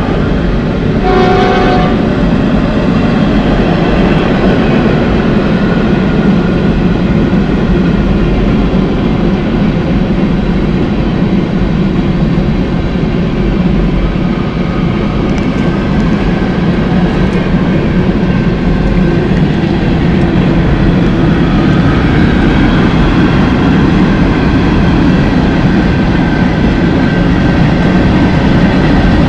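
Freight train of covered hopper cars rolling past: a steady rumble and rattle of wheels on rails. A train horn sounds briefly at the start and stops about two seconds in.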